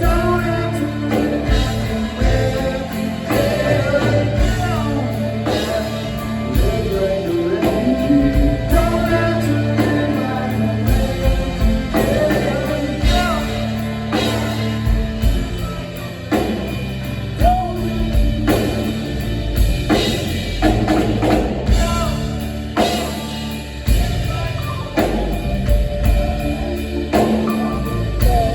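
Rock band playing live: drum kit, electric guitars and bass with a singing voice, loud and continuous.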